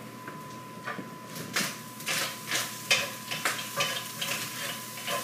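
Ground beef, onions and garlic sizzling in a stainless steel skillet over high heat, stirred with a wooden spoon in scraping strokes about twice a second, starting about a second in.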